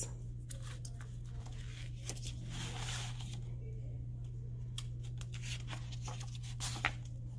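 Hardcover picture book being opened and its paper pages turned: soft taps and rustles of handling, with a longer swish of a page about three seconds in, over a steady low hum.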